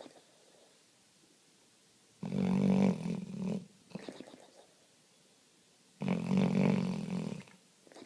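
A sleeping dog snoring loudly: two long snores about four seconds apart, each trailing off into softer breathing.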